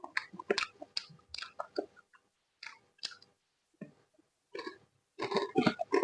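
A person chewing food close to the microphone, with irregular bites and chews coming in short bursts. A thick run of chewing comes near the end.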